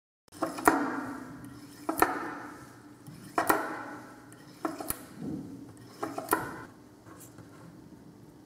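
A bar magnet stroked repeatedly along a straightened steel paperclip wire on a table to magnetize it: sharp clicks a little over a second apart, each as the magnet strikes the wire, trailing off in a short ringing rattle.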